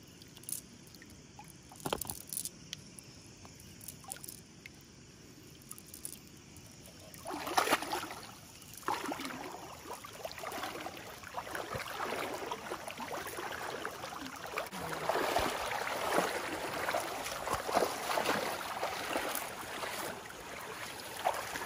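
A few small clicks and drips as a wet cast net is handled, then from about seven seconds in, continuous irregular splashing and sloshing of legs wading through shallow water.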